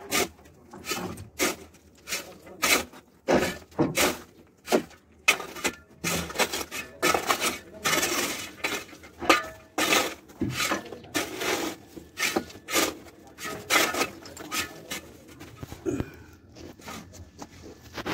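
A steel bar or chisel striking and chipping at the concrete floor beside the pipes. The sharp metallic hits come irregularly, about one or two a second, and grow fewer and fainter near the end.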